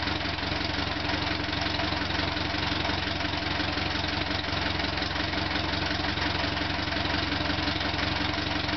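1935 Case C tractor's four-cylinder engine idling steadily, its firing pulses even, running after its broken intake manifold was replaced.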